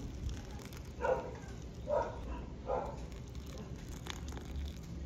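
An animal giving three short, pitched cries about a second apart, with a single click near the end.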